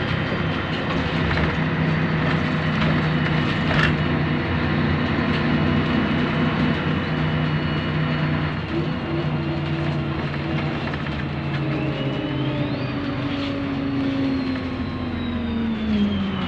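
Scania N113DRB double-decker bus's 11-litre six-cylinder diesel running underway, heard from inside the passenger saloon. A high whine rises about 12 seconds in and then slowly falls, and the engine note drops near the end, with a single knock about 4 seconds in.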